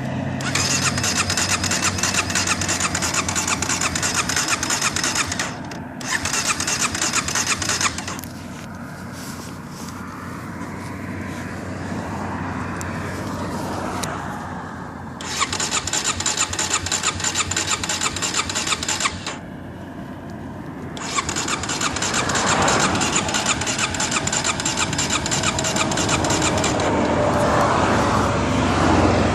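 A starter motor cranking an engine that won't start, in four long attempts with short pauses between them; each attempt is a fast, steady whirring chug.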